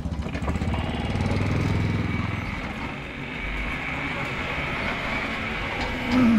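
Steady low vehicle hum with road noise, heard from a rickshaw rolling along a paved road. Near the end a louder motor sound comes in, its pitch dropping quickly as it passes.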